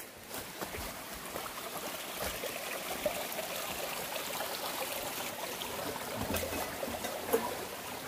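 Small mountain stream trickling over rocks, getting louder in the first couple of seconds and then steady, with a few footsteps on the path.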